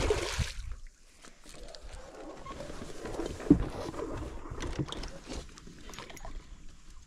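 Faint handling noise: small knocks and rustling over a low rumble, with one sharper knock about three and a half seconds in.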